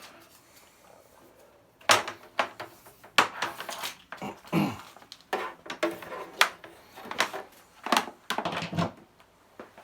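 A run of irregular sharp clicks and knocks from hard plastic equipment being handled while an old Commodore unit is set up and switched on for a first power-on test.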